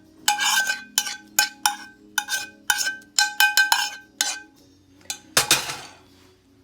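A utensil clinking repeatedly against a dish while sauce is spooned over a katsudon: about a dozen light, quick clinks that each ring briefly at the same pitch, then one louder scraping clatter near the end.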